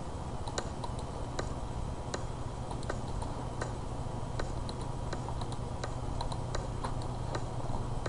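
Scattered light clicks of a computer mouse and keyboard at irregular spacing, over a steady low hum.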